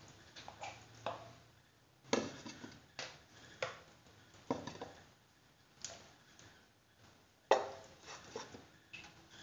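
Raw bone-in mutton pieces being set down one by one in an empty metal pressure cooker: irregular soft knocks and thuds of meat and bone against the pot, with the sharpest one about seven and a half seconds in.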